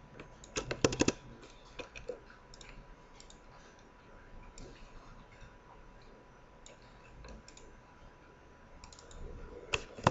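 Clicks of a computer mouse and keyboard: a quick run of clicks about half a second in, a few scattered single clicks after, and another run near the end.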